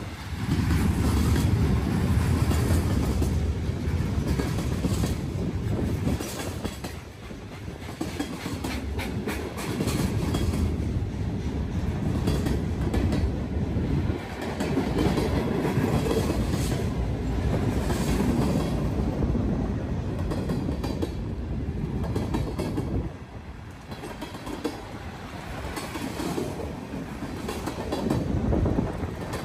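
BNSF freight train rolling past at speed, its wheels clicking over the rail joints above a steady rumble that grows louder and quieter by turns.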